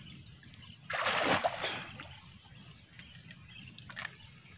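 A single short splash of water at the river's edge about a second in, fading quickly, followed by a few faint clicks near the end.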